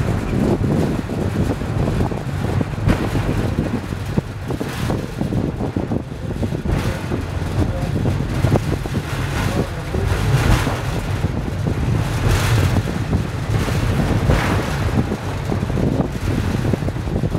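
Funicular car running down its rails: a steady low rumble, with wind buffeting the microphone.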